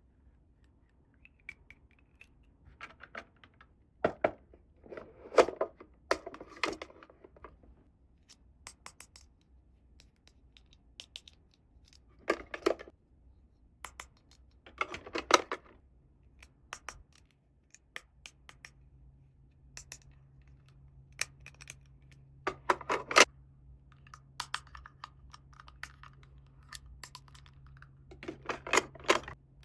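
Small plastic toy pieces being handled during an unboxing: scattered sharp clicks and taps, with several short bursts of scratching and rustling. A faint steady hum comes in about halfway through.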